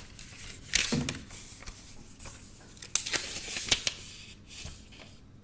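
Paper rustling and crinkling in short bursts with light clicks and taps: a folded quick start guide being opened and handled.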